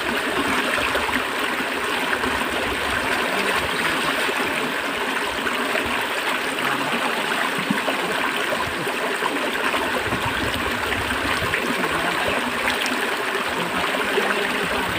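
River water flowing: a steady, continuous rush of running water.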